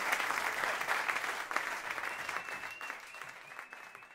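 Audience applauding, a dense patter of many hands clapping that fades out toward the end.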